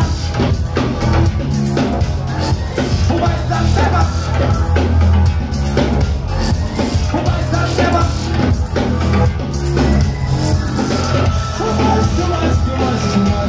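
Live band playing an instrumental stretch of a song with heavy bass and steady drums, and a held high tone coming in near the end.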